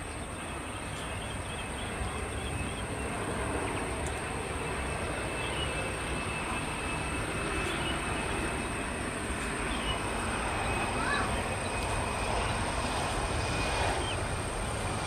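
Boeing 737-400's CFM56 jet engines on final approach to landing: a steady roar with a faint high whine, slowly growing louder as the airliner nears the runway.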